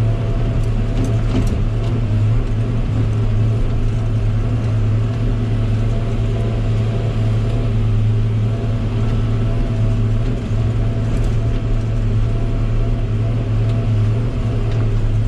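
Log loader's diesel engine running steadily under load, a constant low hum with a few faint clicks about a second in.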